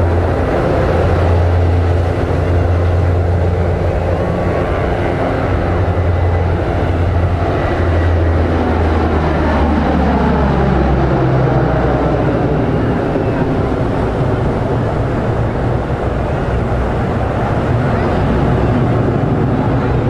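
An aircraft passing during an air show flying display; its engine note drops in pitch as it goes by, roughly a third of the way in, over a steady low rumble.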